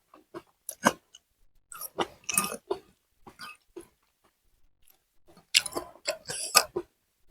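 A person eating close to the microphone: wet chewing and biting in irregular bursts of crunchy clicks, with a quieter pause in the middle.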